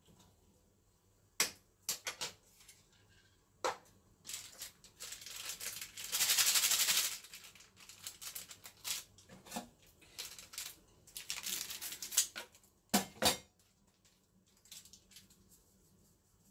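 Plastic ramen soup-powder packet crinkling as it is handled and torn open, with one loud, continuous tearing rip about six seconds in and more crinkling later. A few sharp clicks come before, and two sharp knocks near the end.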